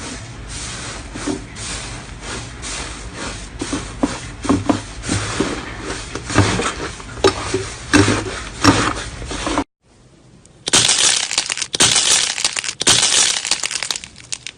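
Slime being squeezed and worked by hand, crackling and popping in quick, uneven clicks over a low hum. About ten seconds in there is a short break, then a louder, crisper stretch of crackling.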